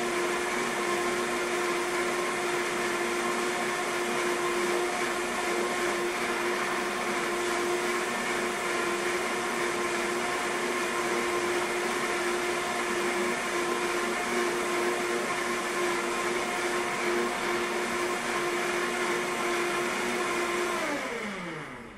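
Vitamix blender motor running steadily at high speed, blend-cleaning its container with soapy water. Near the end the whine falls in pitch as the speed dial is turned down and the motor winds down.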